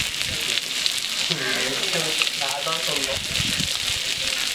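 Fish deep-frying in hot oil, a steady sizzle. People talk over it for a couple of seconds in the middle.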